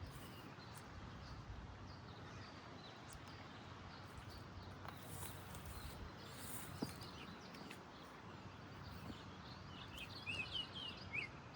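Faint outdoor ambience: a steady low hiss, with a single sharp click about seven seconds in and a few quick bird chirps near the end.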